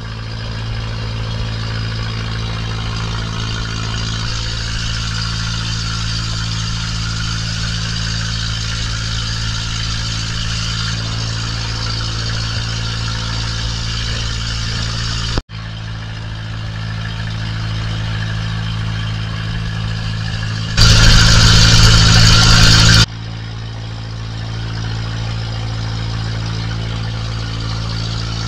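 Engine of a motorized outrigger boat running at a steady pace while underway, a low steady drone with a hiss over it. The sound drops out for an instant about halfway through, and a few seconds later a loud rush of noise lasts about two seconds before the engine drone returns.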